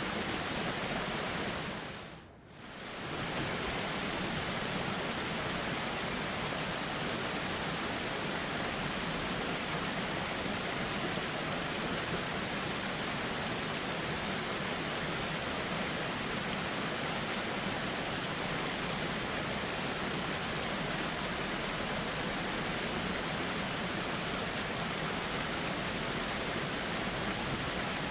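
A river flowing steadily, an even rush of water. About two seconds in, the sound fades down briefly and comes straight back up.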